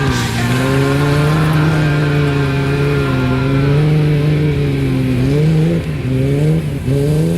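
Off-road 4x4's engine running hard at high revs, held steady, then dropping and picking back up twice near the end.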